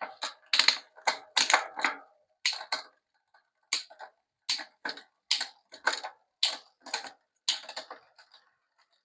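Bicycle drivetrain being shifted through the gears by hand: a series of about a dozen sharp clicks and clacks, roughly one every two-thirds of a second, as the shifter indexes and the chain moves across the rear cogs. This is a test of the shifting after the cable tension was set at the barrel adjuster.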